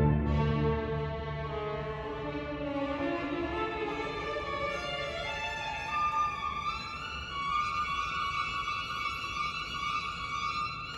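Pipe organ playing long held chords in a live concert, opening on a loud deep bass chord that eases into quieter sustained notes.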